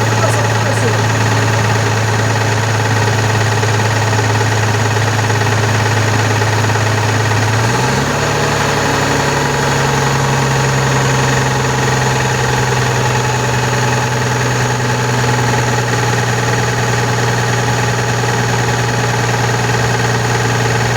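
Volkswagen Constellation 19.320 truck's diesel engine running steadily at idle, its speed stepping up slightly about eight seconds in. It is making a new noise that the mechanic says could be play in the camshaft gear train.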